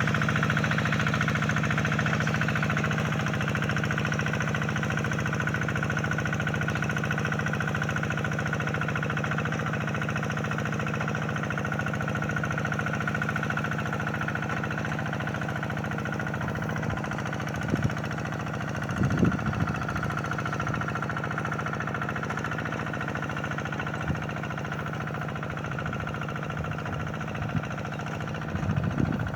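Hand tractor engine running steadily under load, with brief clattering knocks a little past halfway and again near the end.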